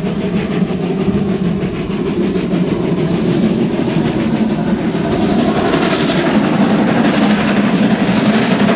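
Steam trains running at speed, heard from an open coach window: wheels clattering on the rails, with the exhaust of the class 52 steam locomotive working hard on the parallel track. The sound grows louder in the second half as the locomotive draws alongside.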